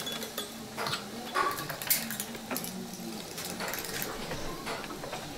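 Workshop ambience: scattered small clicks and taps from hand tools and materials at fly-tying benches, at irregular times, over a faint low hum that comes and goes.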